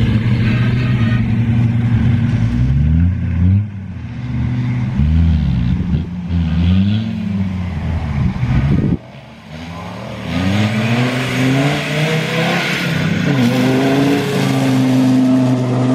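Modified off-road 4x4 engines revving hard as the vehicles drive through deep mud, the pitch climbing and falling again and again with throttle and gear changes. About nine seconds in, the sound drops abruptly, then repeated rising revs build back up.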